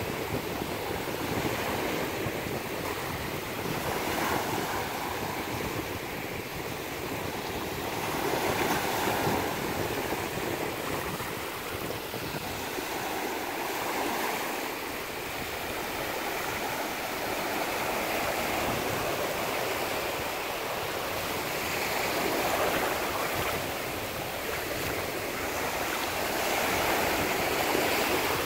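Sea surf: small waves breaking in a steady rushing wash that swells and eases every few seconds.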